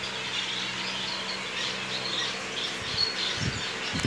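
Chorus of small aviary birds chirping steadily, over a steady low hum, with a couple of soft low bumps near the end.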